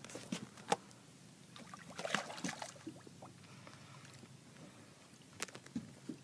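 Scattered knocks and clicks of handling on a fiberglass boat deck, with a splashy burst about two seconds in as a hooked fish thrashes at the surface and is lifted out of the water.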